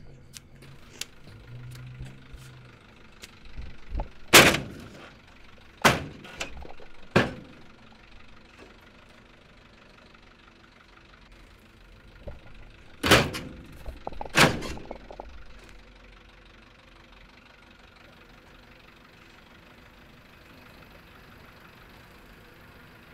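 A bus engine idling steadily, with five loud thuds over it: three about a second and a half apart, then two more after a pause of several seconds.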